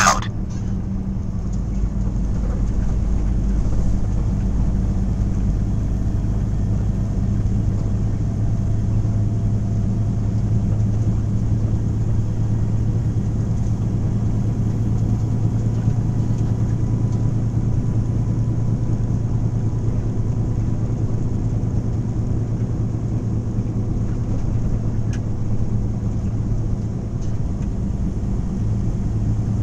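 Vehicle driving at steady speed on a paved road, heard from inside the cabin: a constant low engine hum with tyre and road noise.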